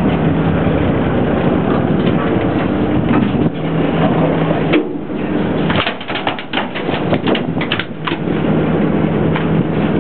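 Boat engine running with a steady hum under rushing wind-like noise; a quick run of sharp clicks or rattles comes about six to eight seconds in.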